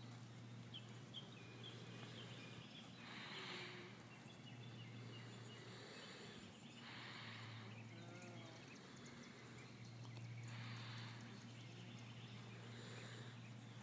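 Faint outdoor ambience: a low steady hum under soft swells of hiss every three to four seconds, with a few faint chirps in the first few seconds.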